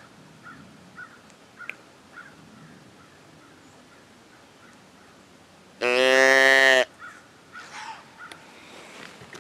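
A hand-held deer call blown once about six seconds in: a loud, steady-pitched bleat lasting about a second, used to call to the deer in view. Faint small chirps and some light rustling are heard around it.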